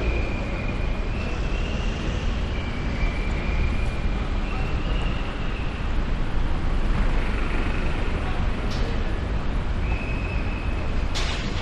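Steady urban road traffic noise, vehicles running past on the street, with a thin high tone that steps up and down in pitch over it. A couple of brief sharp sounds come near the end.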